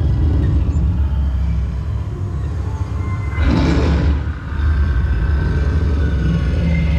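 Steady deep rumble from a dark ride's soundtrack effects, with a brief louder noisy burst about three and a half seconds in.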